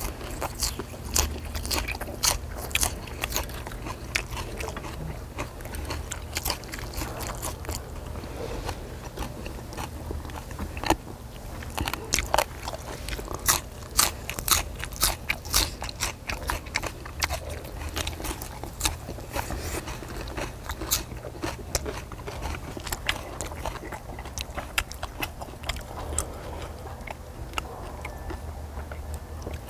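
Close-up eating sounds of grilled pork belly and minari: chewing and crunchy bites, with many irregular sharp clicks, over a steady low hum.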